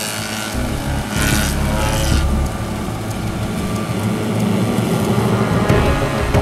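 Municipal carrier vehicle's engine running steadily while its hydraulically driven reflector-post mower spins two mowing discs through roadside grass around a marker post. A rushing hiss comes in about a second in and stops about two seconds in.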